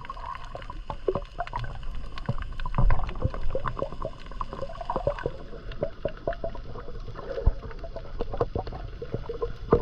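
Water gurgling and sloshing around the camera during snorkelling, with many irregular knocks and clicks over a steady low rumble.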